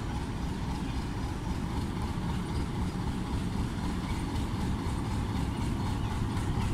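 Diesel locomotive running as it hauls a passenger train slowly out of the station, a steady low engine rumble that grows a little louder as it draws closer.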